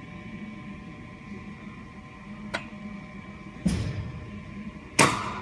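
Softball batting practice in a cage: a light click, then a thump about a second later, then a loud bat-on-ball crack with a short ringing tail near the end, over a faint steady hum.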